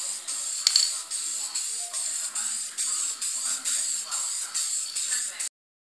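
Aerosol spray-paint can spraying red paint onto a steel plate: a steady hiss that cuts off abruptly about five and a half seconds in.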